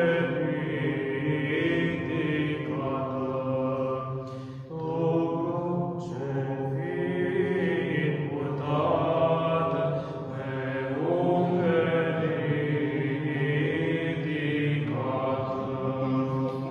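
Small male choir of Orthodox monks singing liturgical chant unaccompanied, the melody carried over a steady low held note. It goes in long phrases, with short breaks between them about every five seconds.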